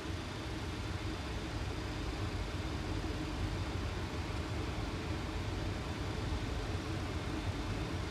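Steady rushing airflow and engine noise with a low rumble inside a Boeing 737 cockpit on final approach.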